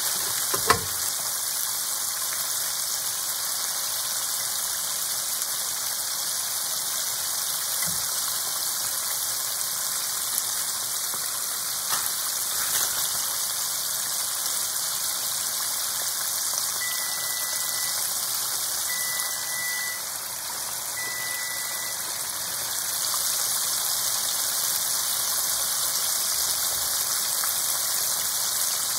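Battered chicken pieces deep-frying in hot oil, a steady crackling sizzle. There is one sharp click about a second in.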